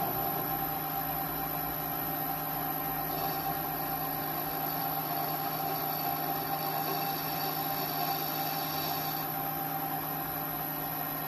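Mini lathe running steadily under power with a high, constant whine, as an indexable neutral-rake insert turns annealed tool steel. A higher, hissier layer joins from about three seconds in until about nine seconds in.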